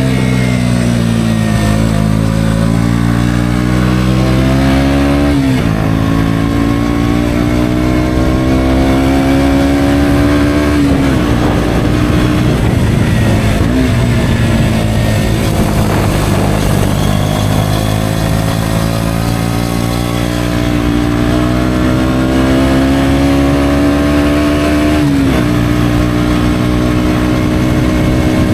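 KTM Duke 125's single-cylinder engine through an Akrapovic exhaust, under way: the engine note climbs slowly under throttle and drops suddenly a few times, as with gear changes or easing off.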